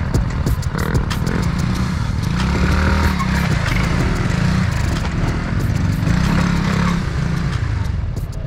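Small scooter engine running under throttle, swelling louder twice as it is revved while the scooter is held up on its back wheel in a standing wheelie.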